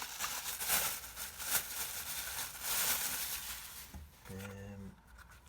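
Packaging rustling and crinkling as it is handled and thrown away, with a few sharp crackles, dying down after about four seconds.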